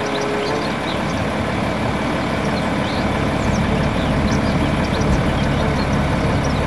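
Diesel engine of a Volvo tipper truck running steadily while the hydraulic ram lifts the dump body, growing a little louder from about halfway through.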